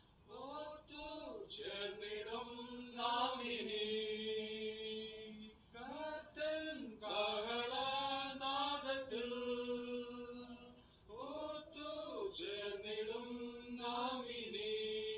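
Voices singing a slow hymn in unison, unaccompanied, with long held notes and short pauses for breath between phrases.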